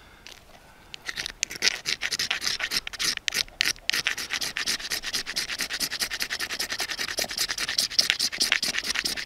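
A knife's sharp edge scraping a magnesium fire-starter block in quick repeated strokes, shaving off magnesium for tinder. The scraping starts about a second in and keeps on, with a brief pause partway.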